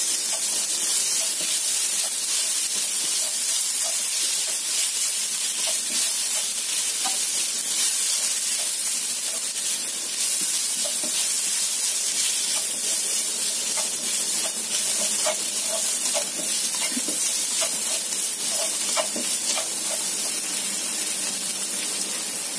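Diced chicken sizzling in hot oil in a nonstick wok as it is stir-fried, a steady hiss with a slotted spatula scraping and tapping against the pan now and then.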